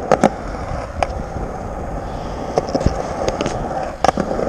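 Skateboard wheels rolling on concrete, with sharp clacks of the tail popping and the deck landing during small ollies: a quick pair just after the start, another about a second in, a few more past the middle and a cluster near the end.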